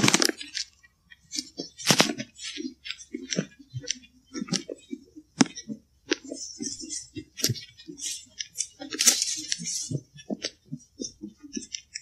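Footsteps through dry leaves and twigs on a forest floor: a string of irregular crunches, snaps and sharp clicks, with denser leaf rustling around six and nine seconds in.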